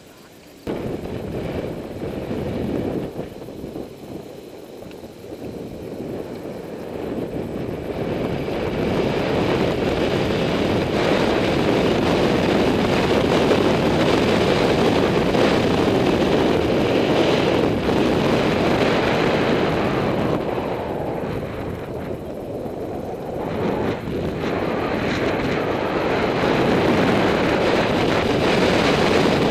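Wind rushing over the microphone of a camera mounted on a road bike riding at speed, a steady rushing noise. It comes in suddenly about a second in, builds over the next several seconds, eases off a little past the middle and rises again near the end.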